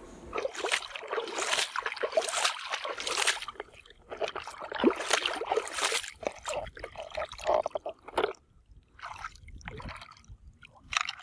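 Water trickling and splashing in irregular bursts as a toy car is washed.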